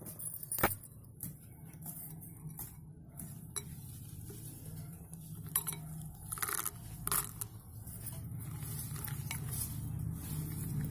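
Steel spoon clinking against a glass bowl as pieces of slate pencil are dropped into a wet slurry of slate-pencil powder and stirred: a string of separate sharp clinks and clicks, over a low steady hum.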